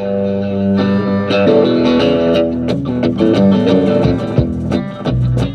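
A band playing an instrumental intro led by guitar, with bass underneath and sharp drum or cymbal hits coming in about halfway through.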